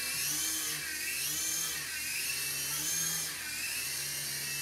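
Electric motor and rotor whine of a UDI/RC U12S micro RC helicopter hovering, a high drill-like whine with a lower hum beneath. The pitch swings up and down about once a second as the rotor speed changes.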